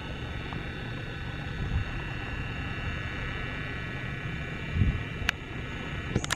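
Steady low rumble of distant engine noise, with a high steady whine over it that fades out about four seconds in. A sharp click about five seconds in and a few more clicks near the end.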